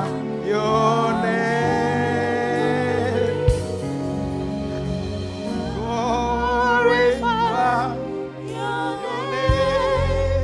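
Slow gospel worship singing with vibrato, over sustained low instrumental notes, with two soft drum-like knocks.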